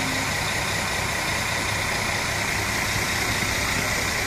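O-Train diesel railcar standing at the platform with its engine idling, a steady, unchanging hum.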